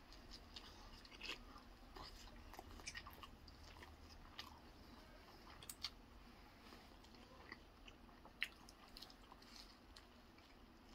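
Faint biting and chewing of a slice of pepperoni pizza, with scattered soft clicks and crunches, the sharpest about eight seconds in.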